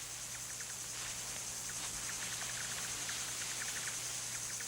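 Forest ambience of insects: a steady high drone, with faint short ticks coming in clusters, over a low steady hum.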